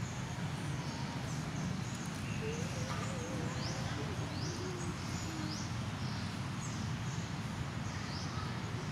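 Outdoor ambience: a steady low rumble, with a bird giving short, high, descending chirps over and over, about one a second.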